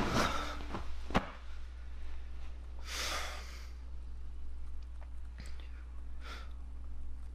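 A man sighing and breathing out heavily through his nose and mouth several times, the longest breath about three seconds in, with a sharp click about a second in. A low steady hum sits underneath.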